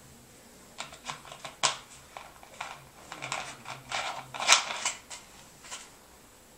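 A plastic soda bottle being handled and its cap screwed back on: a run of irregular clicks and crackles, loudest a little after the middle.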